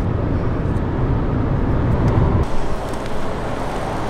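Steady rumble of road and engine noise inside a moving car's cabin. It cuts off abruptly about two and a half seconds in, giving way to a thinner outdoor background hiss.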